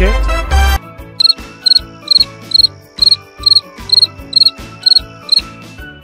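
Cricket chirping: a steady run of short, high chirps about two a second, over light background music. It is preceded by a brief loud sound at the very start.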